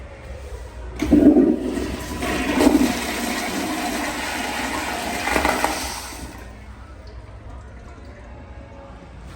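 Proflo toilet flushing: a sudden rush of water about a second in, surging twice more, then dying away after about five seconds.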